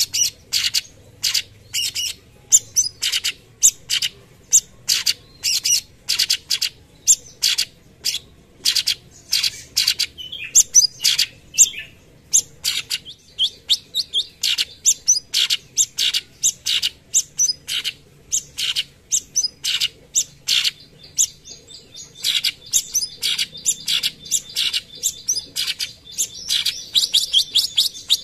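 Orange-bellied leafbird (cucak cungkok) singing its rapid 'tembakan' phrases: a long run of sharp, high chipping notes, about two to three a second, coming faster and denser near the end.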